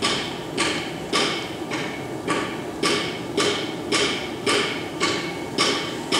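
Metal being struck at an even pace, about twice a second, each hit sharp with a brief ring, over a steady background noise.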